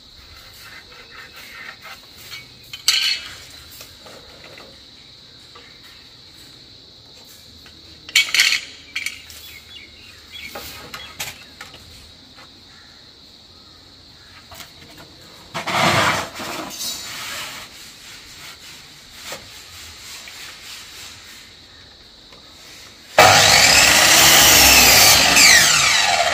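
Electric mitre saw run up and cutting through a timber plank: a loud stretch of about three seconds near the end. Before it, a few short knocks of wood and tools being handled.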